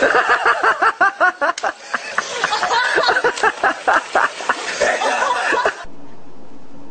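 A person laughing hard in a rapid run of ha's, cut off abruptly near the end.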